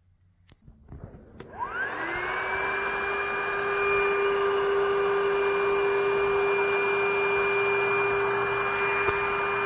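A couple of clicks, then a small electric motor spins up about a second in, its whine rising quickly in pitch before settling into a steady run with a rushing hiss.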